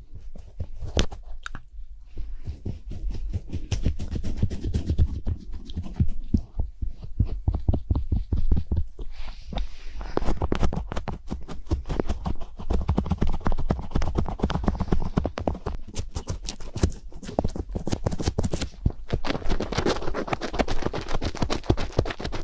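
Close-microphone ASMR trigger sounds without whispering: rapid clicking and tapping with soft low thuds, growing denser about halfway through.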